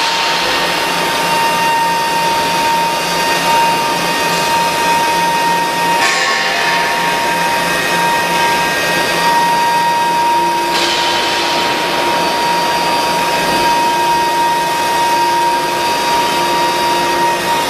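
Medium-frequency induction annealing equipment on a pipe welding line running: a steady high whine near 1 kHz over an even machinery hiss, with the hiss briefly rising about 6 seconds and again about 11 seconds in.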